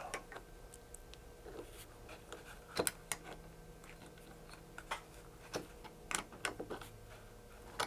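Small metal robot-kit parts handled by hand: scattered light clicks and taps of screws, nuts and aluminium brackets being fitted and tightened, the most distinct about three seconds in, over a low steady hum.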